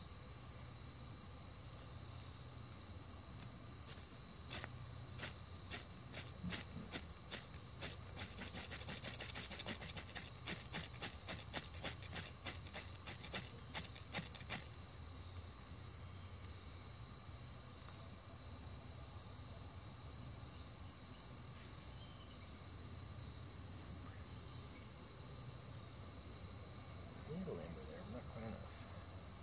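Insect chorus trilling steadily in two high pitches. A run of sharp clicks starts about four seconds in, quickens, and stops about halfway through.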